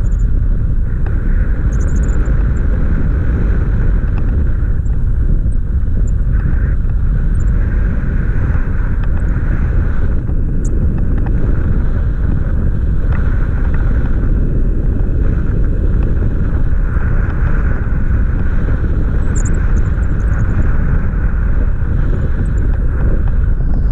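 Loud, steady wind buffeting the camera's microphone during a tandem paraglider flight, heaviest as a low rumble.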